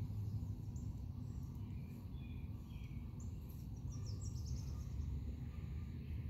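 Outdoor pond-side ambience: a low steady rumble with faint, scattered bird chirps, a few more of them together about three to four seconds in.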